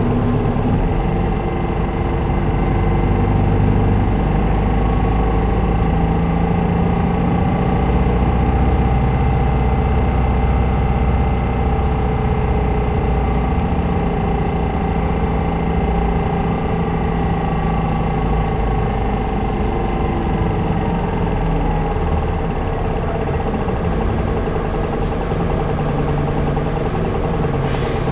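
City bus running along its route, heard on board: steady engine and drivetrain hum with whining tones that hold, then slide down in pitch a little past two-thirds of the way, as the engine speed changes. A short hiss near the end.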